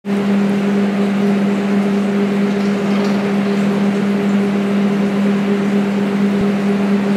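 Steady machinery hum: a low droning tone with a second tone an octave above it, over an even hiss, unchanging throughout.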